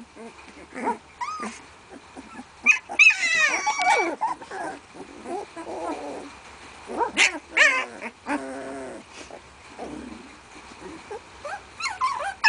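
A litter of 16-day-old puppies whimpering and squealing, with many short high cries. A longer squeal comes about three seconds in, and a lower, quickly pulsing call follows around eight seconds in.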